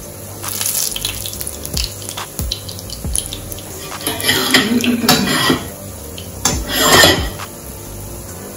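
A metal fork clicking and scraping against a frying pan of hot oil, followed by two loud rushing noises of about a second each, the second shorter.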